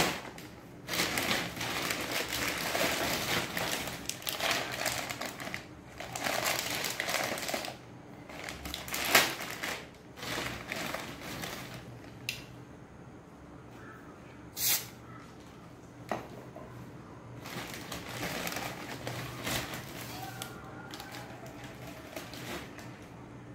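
Thin plastic carrier bag rustling and crinkling as hands rummage in it and pull out snack packets, in stretches of a few seconds, with a few sharp clicks and taps between.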